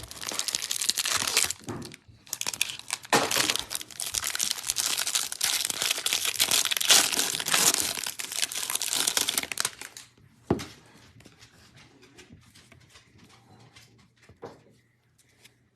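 Hanger box of Topps baseball cards being torn open, its packaging crinkling and tearing for about ten seconds with a brief pause near the start. After that it is much quieter, with a couple of light clicks.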